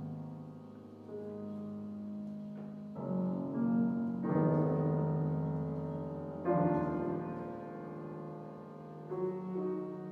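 Piano playing slow, sustained chords in a classical recital, a new chord struck every one to three seconds and left to ring, the strongest about four and six and a half seconds in.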